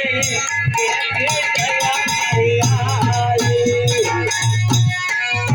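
Instrumental passage of Indian folk music: a melody line over a steady beat with shaker-like percussion.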